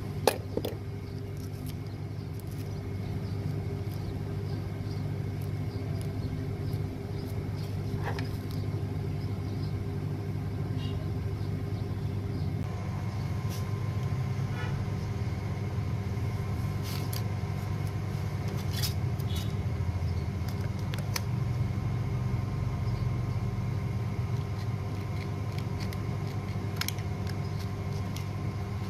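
A steady low machine hum, as of a motor running, under a few scattered light clicks and taps. One sharp tap comes just after the start, as pliers are set down.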